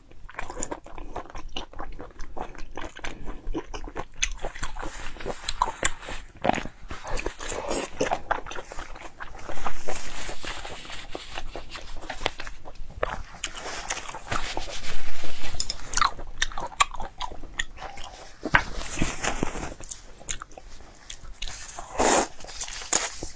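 Close-miked eating: biting and chewing with wet smacks and crunches on fried stuffed pork intestine, then slurping noodles near the end.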